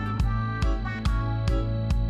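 Background music with a steady beat, a little over two beats a second, under held instrumental notes.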